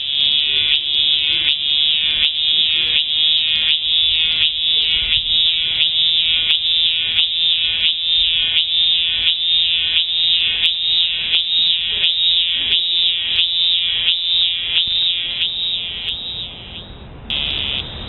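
A cicada singing: a loud, high, pulsing buzz repeated about one and a half times a second, which turns into a short steady buzz near the end and then fades.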